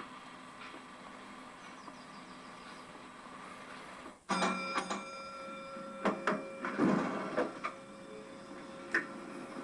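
Model electric train on a layout: a steady low hum, then a sharp click about four seconds in, followed by a steady whine and a string of irregular clicks as the model railcar starts to move off.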